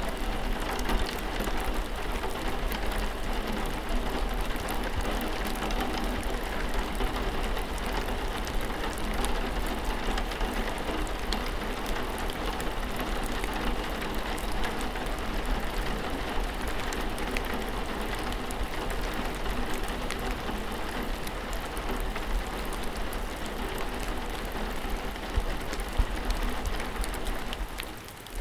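Steady rain falling on a surface, a dense patter of individual drop ticks over a constant hiss with a low rumble underneath. The level dips briefly just before the end.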